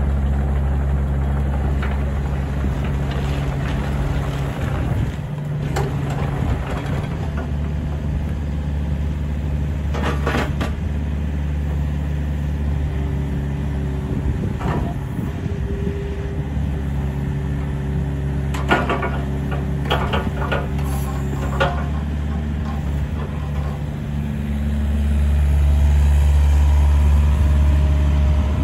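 Hitachi ZX48U-3 mini excavator at work: its diesel engine runs steadily as the machine tracks and moves its boom, with a few short knocks along the way. The engine grows louder near the end as the boom is raised.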